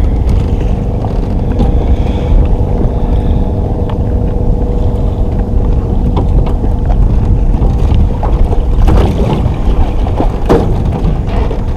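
Wind buffeting the microphone on a small aluminium boat on choppy water, a loud steady rumble with a steady hum underneath and a couple of sharp knocks near the end.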